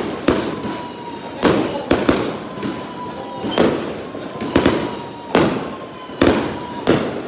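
Fireworks going off: a rapid, irregular series of sharp bangs, about one or two a second, each trailing off in an echo.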